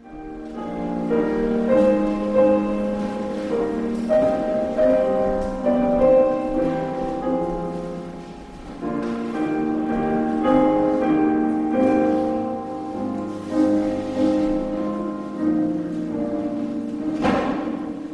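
Piano playing a slow hymn tune in sustained chords, the introduction to a congregational hymn.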